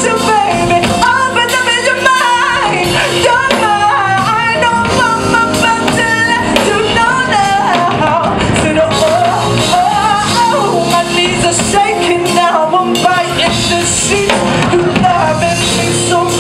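Live R&B band playing, with a singer's wavering, sliding vocal runs over sustained bass notes.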